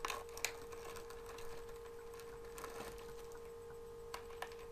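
Faint handling of small plastic packaging: scattered clicks and crinkles as a blind-box bag and toy figure are turned over in the hands, over a steady faint hum.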